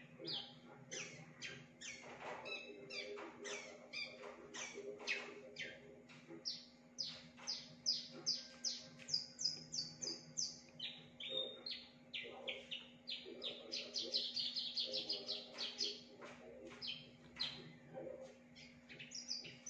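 Javan bush lark (branjangan) singing: a fast, unbroken string of short, high, varied notes that mimic other birds' calls, with a quick run of rapid repeated notes a little past the middle.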